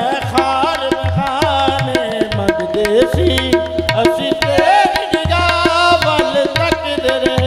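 Qawwali music in a passage between sung verses: a harmonium melody over a steady tabla rhythm.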